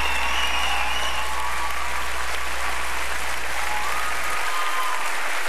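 Studio audience applauding steadily. A low steady tone underneath cuts off about four and a half seconds in.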